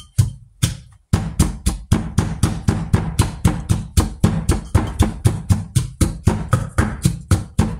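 Wooden pestle pounding in a clay mortar: loud, regular strikes about three a second, after a short pause near the start.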